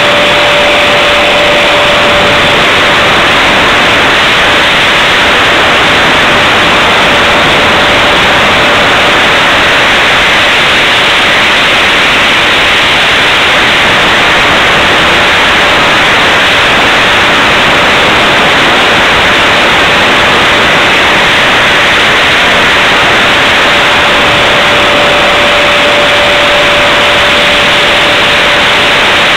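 HSD Viper 75mm electric ducted fan running in flight, heard from a camera on the airframe: a loud, steady rushing hiss of fan and airflow with a thin steady whine that fades through the middle and returns near the end.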